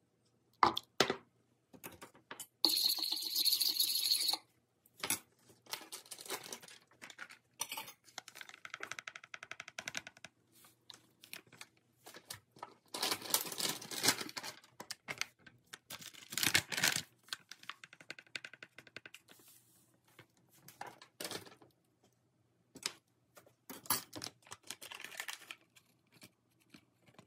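Kitchen prep handling sounds: scattered clicks and taps of a metal spoon and glass measuring cup, with bursts of rustling as packets are handled and powders are tipped into a plastic mixing bowl. The longest rustle lasts about a second and a half, a few seconds in.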